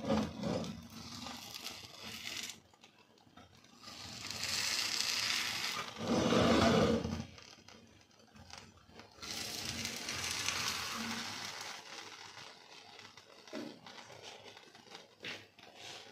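Slotted metal spatula scraping and sliding on an iron tawa under a makki ki roti (corn-flour flatbread) to loosen it, in a few separate stretches with small clicks between.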